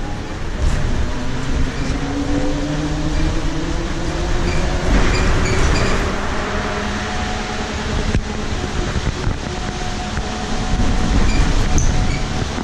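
Whine of a Nova Bus LFSe electric bus's TM4 traction motor, heard from inside the cabin. It rises in pitch for the first few seconds as the bus accelerates, then holds steady over a low road rumble.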